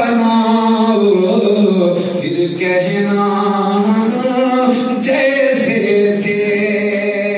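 A man sings a naat, Urdu devotional poetry, without instruments into a microphone. He holds long notes that bend up and down, with short breaths between phrases.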